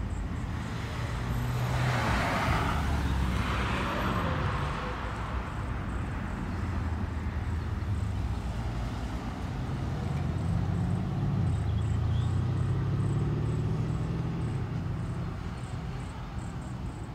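Road traffic going by: a passing vehicle's tyre hiss swells and fades a couple of seconds in, and a low engine hum rises and falls later on.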